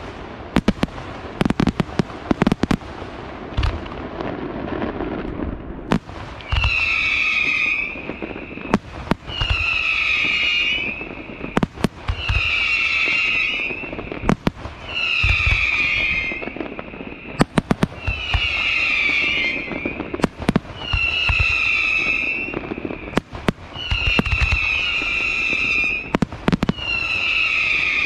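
Aerial fireworks display: sharp bangs of bursting shells, then, from about six seconds in, a shrill whistle roughly every three seconds, each lasting a second or two and dipping in pitch, with bangs in between.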